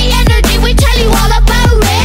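Electronic dance music with a steady, fast, heavy beat and a pitch-bending lead line over it.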